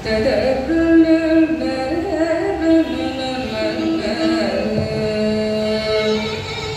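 A woman singing Carnatic music in raga Abhogi, holding long notes and sliding between them, with violin accompaniment.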